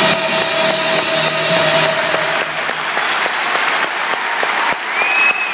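Large arena audience applauding as the orchestra's final held chord fades out in the first couple of seconds. Near the end a single short whistle rises above the clapping.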